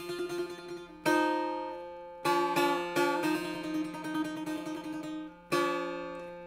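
Setar played solo in free rhythm: a phrase from the dar amad of Abu Ata. Strong plucks come about one, two and five and a half seconds in, with a run of quick notes in between, and each phrase rings and dies away.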